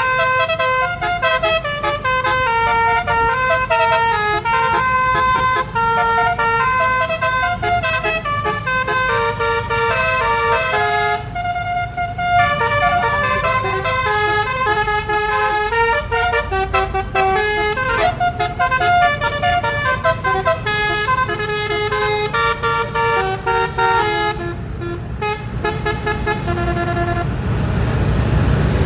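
Basuri multi-tone 'telolet' bus horn playing a fast, ska-style melody of many short notes, over a low engine rumble.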